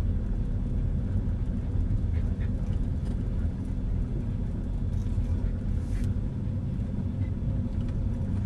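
Car driving at low speed: a steady low rumble of engine and tyre noise on the road, with a couple of faint ticks.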